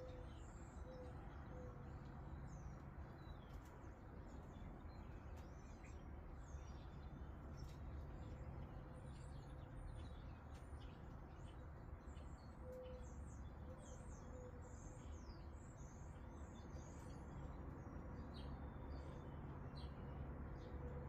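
Faint birds chirping, many short calls scattered throughout, over a steady low hum.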